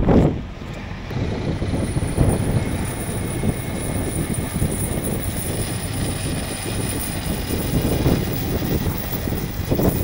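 Heavy wrecker's diesel engine running steadily, mixed with gusty wind rumbling on the microphone.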